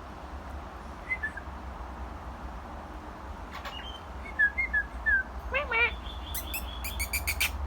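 Small birds calling: short whistled chirps, a run of them mid-way, then a wavering upward call and fast rattling trills near the end, over a steady low rumble.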